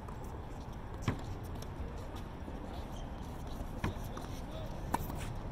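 Tennis rackets striking the ball during a rally: three sharp pops, about a second in, just before four seconds and about a second after that, over a steady background hiss.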